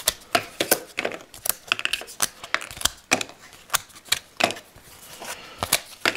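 Thick cardboard hexagonal game tiles being punched out of a punchboard sheet by hand: a string of irregular sharp snaps and clicks, about three a second.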